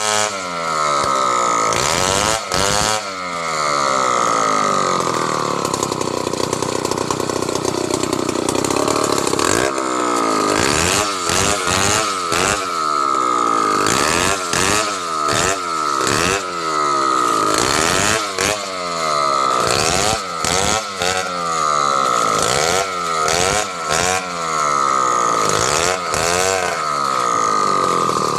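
Two-stroke chainsaw running at high revs, its pitch repeatedly dropping and climbing again many times as the engine is throttled and loaded, with a few brief dips in level.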